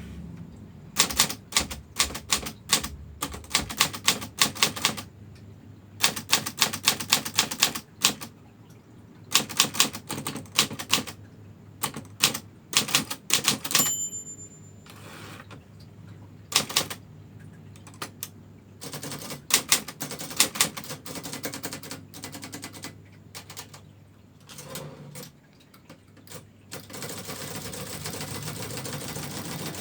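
Brother manual typewriter being typed on: quick runs of sharp key strikes broken by short pauses, with a brief ringing tone about fourteen seconds in. Near the end the typing stops and a steady noise takes over.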